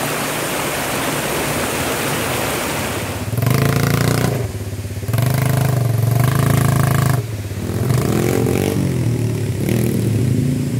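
Shallow stream rushing over rocks, then about three seconds in a quad (ATV) engine runs and revs up and eases off several times.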